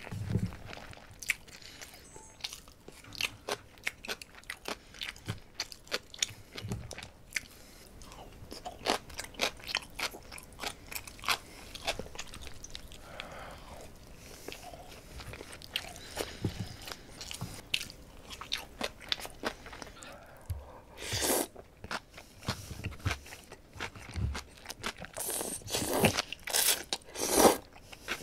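A person eating spicy pork trotters and noodles right at the microphone: steady chewing with crunching, smacking bites, and near the end a run of louder slurps as noodles are sucked in.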